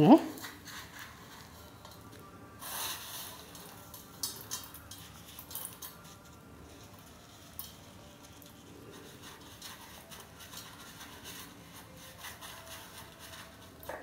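Dry vermicelli strands rustling and crackling faintly as hands press and roll a batter-coated potato cup in them in a steel bowl, with a louder rustle about three seconds in and scattered light ticks.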